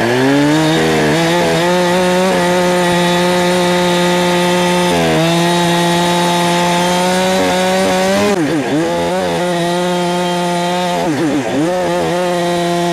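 Holzfforma G372XP, a 71cc two-stroke chainsaw, revs up and cuts wood at full throttle. Its engine pitch dips briefly and climbs back several times, twice sharply in the second half.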